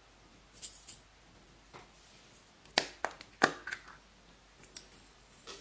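Small plastic add-in cups being handled and opened, giving a series of sharp plastic clicks and snaps. The loudest cluster of clicks comes a little past the middle, with lighter clicks near the start and near the end.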